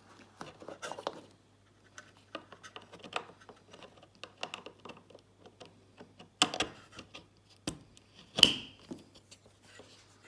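Small hard-plastic parts being handled and pressed together: a plastic-capped cable plug worked into its recessed socket on a TV's plastic back. There is light scraping and ticking throughout, with two louder sharp clicks about six and eight seconds in.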